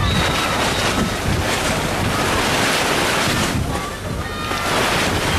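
Wind buffeting the microphone in a snowstorm: a steady, loud rushing noise. Faint distant voices call out near the start and again about four and a half seconds in.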